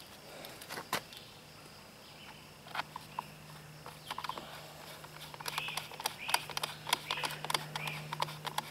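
Light scattered clicks and taps of a screwdriver and plastic parts as a two-stroke weed trimmer's engine shroud is screwed back together. A bird chirps repeatedly in the second half.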